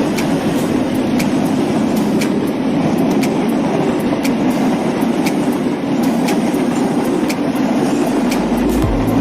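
Train running past with a steady rumble and regular clicks, about one and a half a second, typical of wheels passing over rail joints. A low steady hum comes in near the end.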